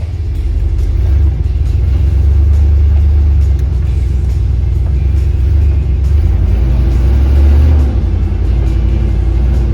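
Dodge 440 big-block V8 running under way, a steady low rumble that swells slightly and eases off about eight seconds in.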